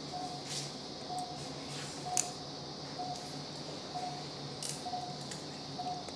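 Anaesthesia patient monitor beeping, a short steady tone about once a second in time with the anaesthetised dog's pulse, over a low steady hum. A sharp click comes about two seconds in, with a few fainter clicks.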